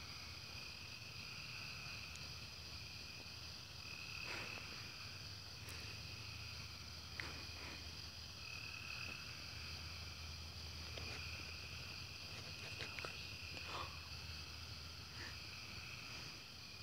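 Crickets trilling steadily in a night chorus, swelling and fading, with a few faint clicks now and then.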